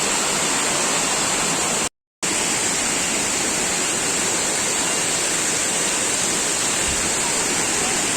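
Steady rushing of a waterfall. It cuts out completely for a moment about two seconds in.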